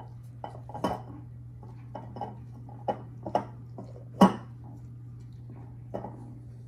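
Gloved hands packing wet, chili-coated napa cabbage kimchi into a large glass jar: irregular knocks and taps of hands and cabbage against the glass, the loudest about four seconds in.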